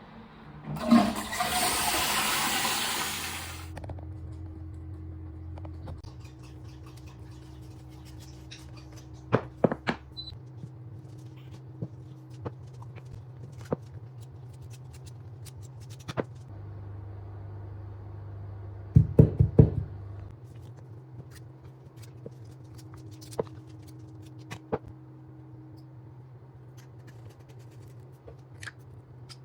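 Toilet flushed after a new fill valve is fitted: a loud rush of water for about three seconds near the start, then quieter sound as the cistern refills, with a steady low hum and scattered sharp clicks, including a loud cluster about two-thirds of the way through.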